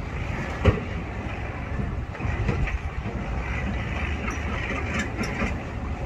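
Skid-steer loader's diesel engine running steadily as it works its raised bucket of sand over a dump truck bed, with one sharp knock shortly after the start.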